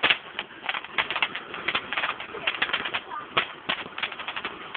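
Firework crackling: a rapid, irregular run of sharp cracks and pops, loudest right at the start.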